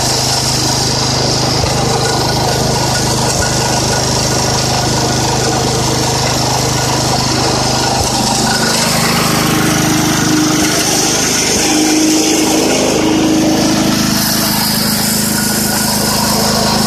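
The Kohler K301A single-cylinder engine of a 1970 IH Cub Cadet 127 garden tractor running steadily, with the mower PTO engaged and making some noise; the tone shifts slightly about halfway through.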